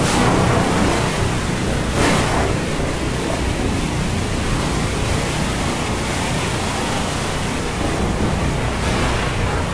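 Heavy rain and surf of a storm at sea: a dense, even rush that swells briefly near the start and again about two seconds in.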